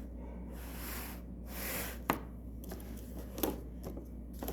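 Handling of the dough containers and their packaging: a soft rustle, then a few light clicks and knocks spaced a second or so apart.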